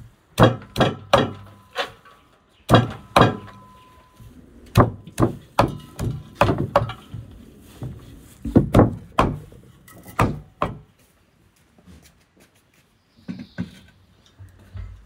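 A cleaver chopping fresh greens on a wooden stump block: a quick, irregular run of sharp chops, two or three a second, for about ten seconds, then a few fainter knocks.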